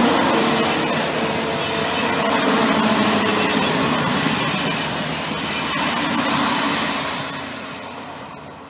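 SNCF regional multiple unit passing close at speed: a steady rush of wheels on rail with a faint hum in the first few seconds, fading near the end.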